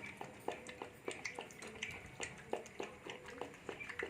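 Pitbull puppy making light, irregular clicking and tapping sounds, a few a second.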